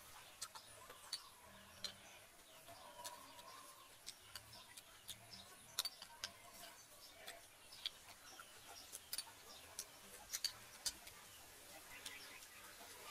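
Quiet eating of cooked snails from a bowl: irregular small clicks and taps of a spoon against the bowl and snail shells, mixed with mouth sounds, about twenty in all.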